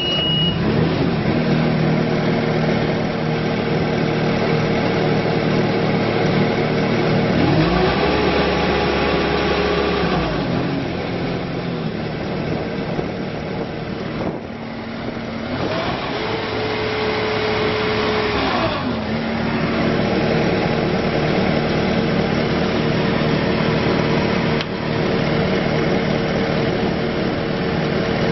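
Bobcat S510 skid steer's diesel engine running steadily just after start-up. It is revved up twice, each time holding the higher speed for about three seconds before dropping back to a lower speed.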